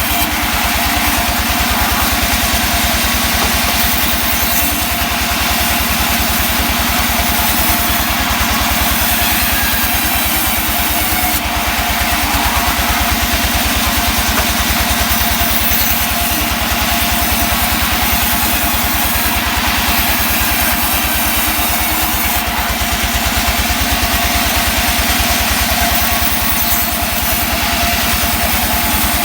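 Engine of a wood saw running steadily at a constant speed, with no clear change in pitch or load.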